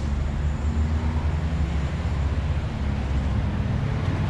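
Steady low rumble of a nearby vehicle engine running.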